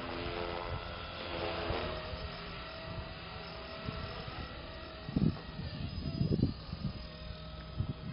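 Electric RC collective-pitch helicopter (Blade SR) flying overhead: a motor and rotor whine that slides up and down in pitch in the first couple of seconds as it manoeuvres, then holds steadier. Short gusts of wind hit the microphone a few times in the second half.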